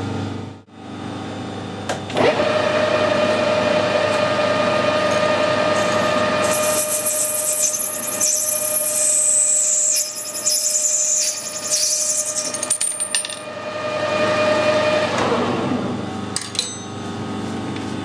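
Metal lathe running as a parting tool cuts off a brass bush: a steady hum with a clear held tone, joined by a high-pitched hiss from the cut between about six and thirteen seconds in. The tone stops about fifteen seconds in.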